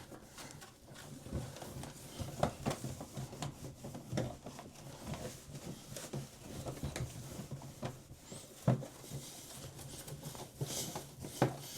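Cloth wiping and rubbing over the outside of a front-loading washing machine, with soft, irregular taps and a faint steady low hum underneath.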